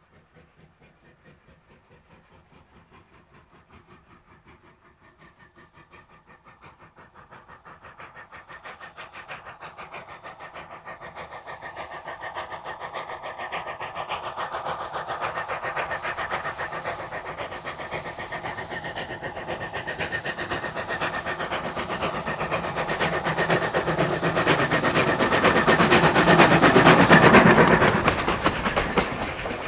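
NZR Ww class 4-6-4T steam tank locomotive Ww 480 working a train up a grade, its rhythmic exhaust beat growing steadily louder as it approaches, loudest near the end as it passes close, then falling away.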